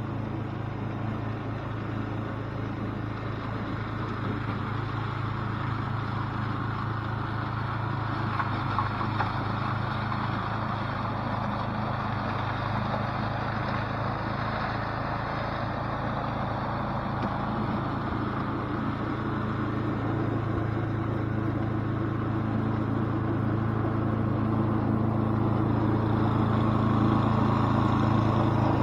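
Toro 824 XL snowblower's small engine running steadily while the machine blows snow, getting gradually louder toward the end.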